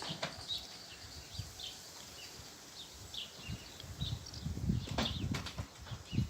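Birds chirping repeatedly in short high notes, with a few low knocks and rumbles about four to six seconds in.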